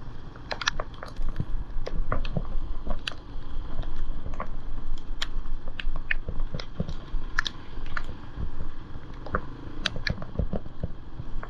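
Raindrops tapping irregularly on an action-camera housing, one to a few sharp ticks a second. Under them runs the steady low drone of a Yamaha Serow 225's single-cylinder engine.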